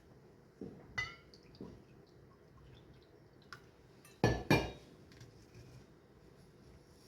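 Kitchenware handled on a counter: a ringing glassy clink about a second in, a small click, then two loud knocks in quick succession a little past the middle.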